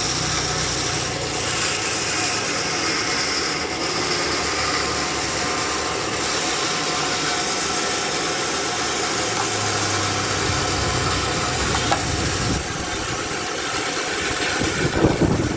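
Band sawmill running with a steady mechanical noise, and a few knocks near the end.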